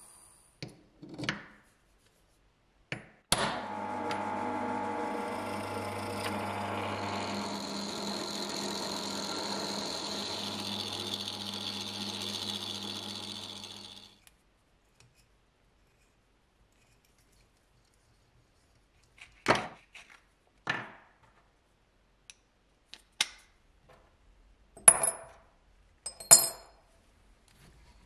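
A power tool starts with a knock and runs steadily with a motor hum for about ten seconds, then stops. After a pause come several sharp taps and clicks from hand work.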